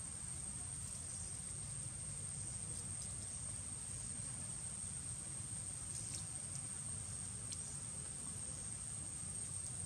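Insects trilling steadily at one high pitch, over a low rumble, with a few faint ticks.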